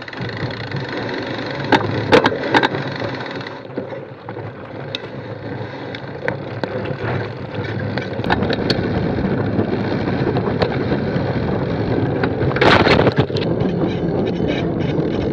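Fat bike rolling and rattling on rough ground, picked up by a bike-mounted action camera: steady tyre and frame noise with wind on the microphone, broken by sharp clicks and knocks.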